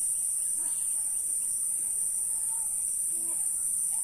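Steady high-pitched chirring of insects.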